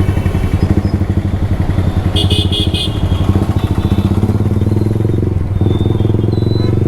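Yamaha R15 V3's single-cylinder engine running under way through an aftermarket exhaust, with a brief drop in the engine note about five and a half seconds in.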